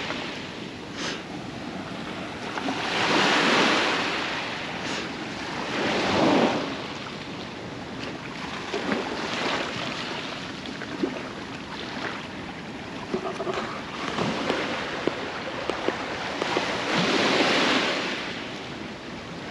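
Sea surf breaking and washing up a beach, rising and falling in slow swells about three times, with wind on the microphone. A few small clicks sound near the middle.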